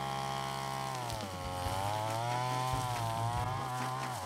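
Backpack brush cutter with a nylon cord head, its small engine running at high throttle. The pitch holds steady for about a second, then dips and wavers as the cord meets the grass.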